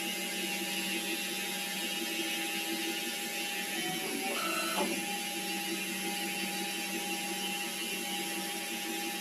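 SIEG C6 CNC lathe running through a cut with a steady motor whine. About four seconds in the whine drops, then a higher whine sounds for under a second before the steady tone returns.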